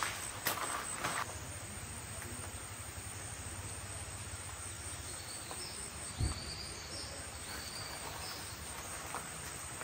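Steady outdoor background noise with a low hum underneath and a run of short high-pitched chirps from insects in the middle. There are a couple of soft knocks near the start and one dull thump about six seconds in.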